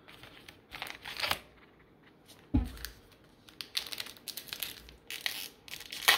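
Plastic trading-card pack wrapper being crinkled and torn open, in hissy rustling bursts, with a short thump about halfway through.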